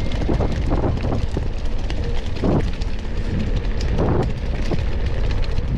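Wind buffeting an action camera's microphone as a mountain bike rolls fast over a rocky dirt road and cobbles. Under the steady rumble are scattered knocks and rattles from the tyres and bike, with two brief louder knocks about two and a half and four seconds in.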